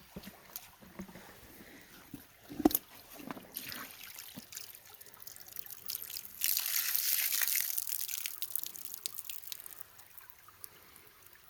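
Creek water trickling and splashing, with scattered small clicks and one sharp knock about two and a half seconds in. Past the middle comes a louder rush of splashing water lasting about two seconds.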